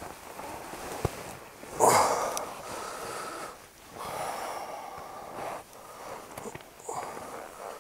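A man settling into a nylon camping hammock: fabric rustles and breaths come in a run of swishes of about a second each, the loudest about two seconds in.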